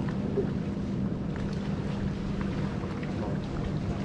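Steady rumble of mountain bike tyres rolling over a dirt trail and wind on the microphone, with faint clicks and rattles from the bike.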